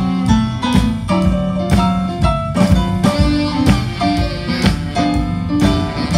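Live blues band playing with a steady beat: drum kit and electric guitar over sustained chords.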